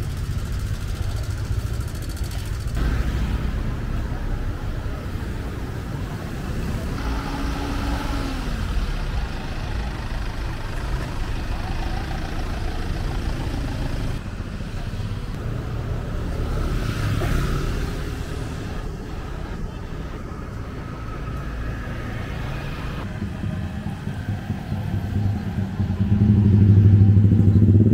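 Street traffic: cars and motorbikes running past in a steady rumble, with one engine passing close and louder near the end.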